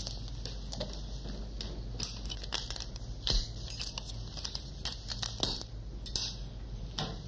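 Handling noise from a camera being worked and set on a tripod: irregular small clicks, knocks and rustles, the sharpest about three seconds in, over a steady low hum.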